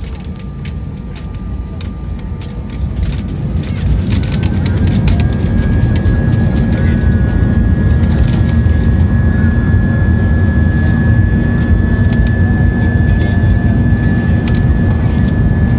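Airbus A320's jet engines spooling up to takeoff thrust, heard from inside the passenger cabin: the rumble rises over the first four seconds, then holds loud and steady with a high whine, the start of the takeoff roll. Light clicks and rattles run through it.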